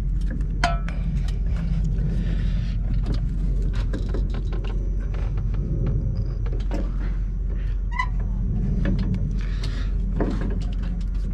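Metal brake parts clicking and scraping as they are worked by hand, over a steady low rumble.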